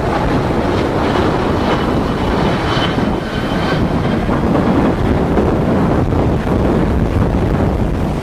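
CFM56 jet engines of a Boeing 737-800 at go-around power, a loud steady roar with a faint high whine a second or so in, under heavy wind buffeting the microphone.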